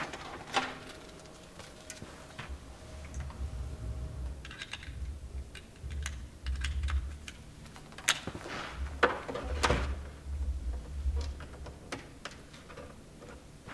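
Equipment being handled and cabled up: irregular clicks and knocks of cable connectors and hardware, soft rustling of cables, and dull low thumps.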